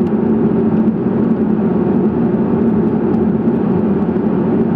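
Steady cockpit drone of a McDonnell Douglas MD-83 on final approach: rushing airflow with the even hum of its rear-mounted Pratt & Whitney JT8D engines.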